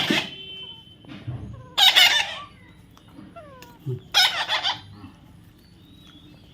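Young parrot calling: three loud, harsh screeches near the start, at about two seconds and at about four seconds, with short falling whistles in between.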